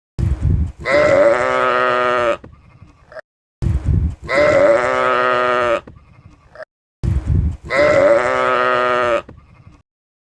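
Sheep bleating three times, about three and a half seconds apart. Each time a short bleat leads into a long one.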